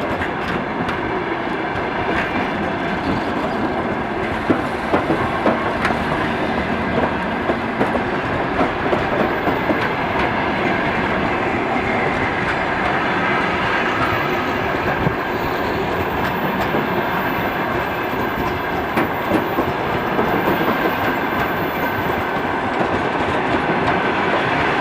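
Passenger train rolling past, its wheels clicking over the rail joints in a steady clickety-clack.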